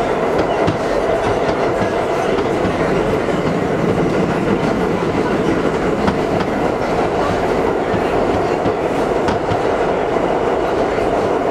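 St. Louis Car Company R42 subway car running, heard from inside the car: a loud, steady rumble of wheels on rail with scattered clicks over rail joints.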